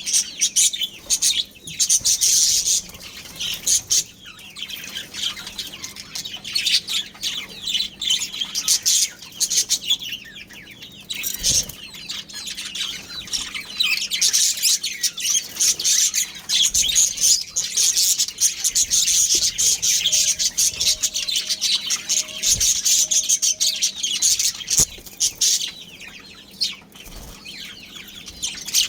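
Budgerigars chirping and chattering without pause, many quick high chirps overlapping.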